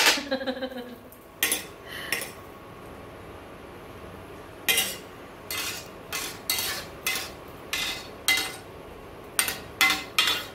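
Metal kitchen utensil clinking against cookware: about a dozen short, sharp metallic clinks at uneven spacing. A few come in the first two seconds, then a pause, then a closer run of clinks through the rest.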